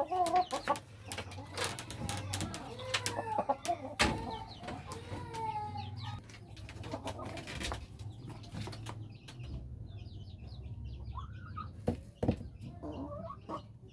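Chickens clucking, with several sharp clicks or knocks in the first half. Later come faint, short, high chirps over a steady low hum.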